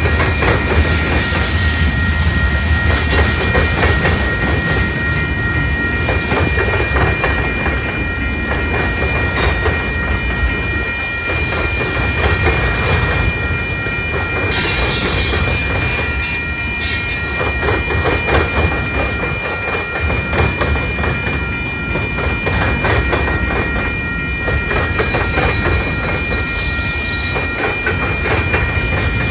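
Freight train of tank cars and hopper cars rolling past at a grade crossing: a steady rumble with the irregular clack of wheels over rail joints. A few steady high tones run through it.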